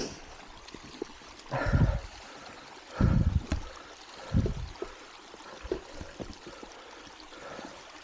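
Mountain bike rolling over a snowy trail: steady tyre and wind noise, broken three times by loud low thumps and rattles from bumps, with scattered small clicks from the bike between them.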